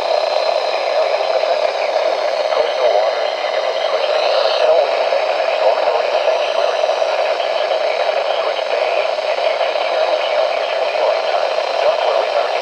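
Weather radio receiver putting out loud, steady static from a weak signal.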